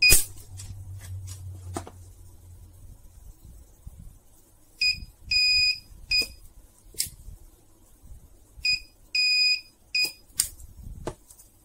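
Handheld-pen battery spot welder welding nickel strip onto 18650 lithium cells. Twice, it sounds a pattern of beeps (short, long, short) and then fires with a sharp crack; there is also a crack at the very start.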